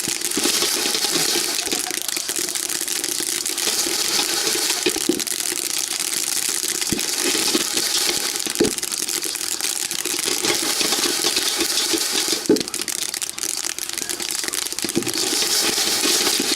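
Rice grains in the hull popping rapidly in a hot dry pan, making a dense, continuous crackle with a few louder knocks.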